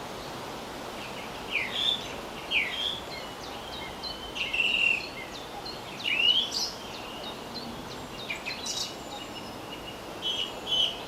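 Songbirds calling, short chirps and quick notes every second or two, the loudest about six seconds in, over a steady outdoor background hiss.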